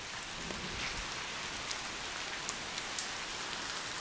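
Steady rain falling, an even hiss of drops with a few sharper ticks of single drops landing close by.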